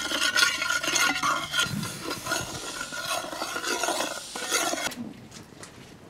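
Metal spoon stirring in a metal pot, scraping against the sides and bottom, until about five seconds in.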